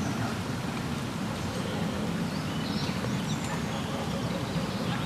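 Steady low rumble of wind on the microphone, with a few faint bird chirps scattered through it.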